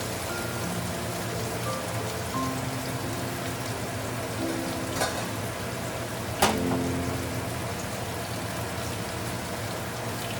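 Food sizzling steadily as it fries in a pan, with two sharp clicks about halfway through, the second louder. Soft background music plays short held notes over it.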